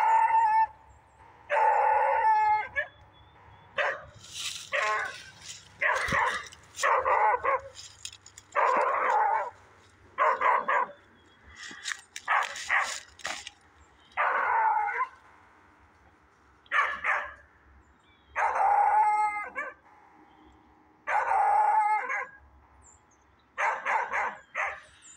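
A dog barking over and over, about one bark every second or two, some barks drawn out.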